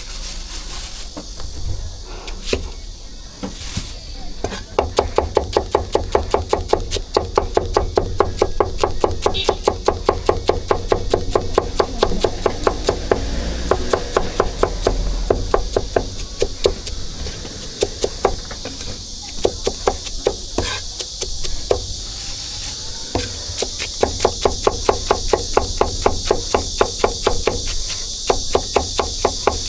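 Cleaver chopping on a wooden board in rapid, even strokes, several a second, starting about four seconds in with a few short pauses: the vendor mincing braised pork for roujiamo.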